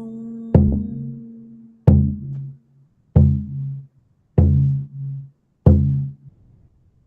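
A deep, resonant hand drum beaten in a slow, steady two-beat pattern, a strong stroke and a softer one about half a second later, repeating roughly every 1.3 seconds, each stroke ringing out briefly.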